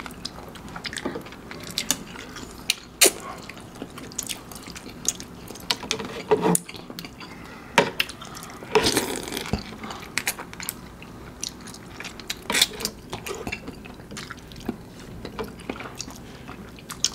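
Close-up eating sounds from curry instant noodles: wet chewing and slurping. Scattered small clicks and taps run throughout, and a longer slurp-like noise comes about nine seconds in.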